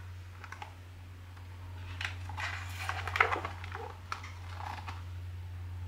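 A page of a large hardcover picture book being turned: a soft paper rustle with some handling noise about two to three seconds in, over a steady low hum.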